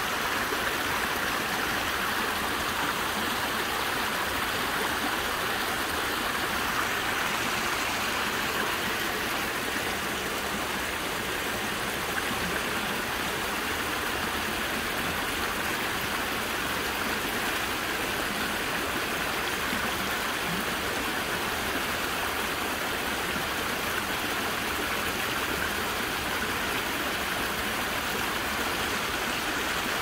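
Shallow rocky mountain stream flowing over stones: a steady rush of running water.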